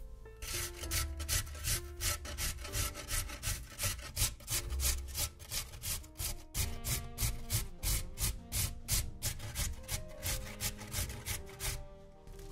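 Vegetables being worked by hand: rhythmic scraping strokes, about four a second, that stop shortly before the end. Soft background music runs underneath.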